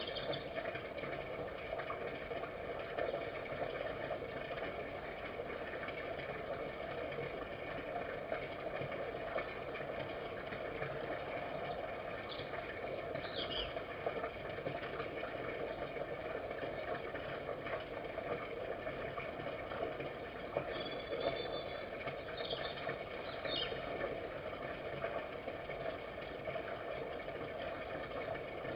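Steady background hiss and hum with no clear event in it, broken by a few short, faint high chirps about twelve seconds in and again around twenty-one to twenty-four seconds in.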